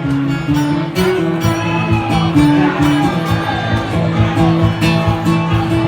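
Live country band playing the instrumental opening of a song: guitar lead over low bass notes that step from one pitch to the next, with regular drum hits.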